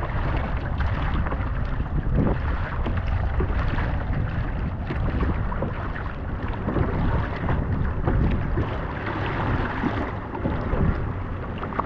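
Wind buffeting the microphone over the irregular splash and lap of choppy water against a kayak as it is paddled.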